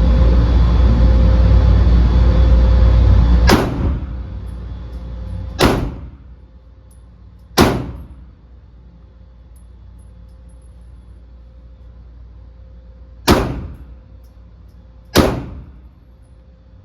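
Five pistol shots from a Glock: three about two seconds apart, a pause of some five seconds, then two more. Under the start is a loud steady rushing noise that falls away after the first shot.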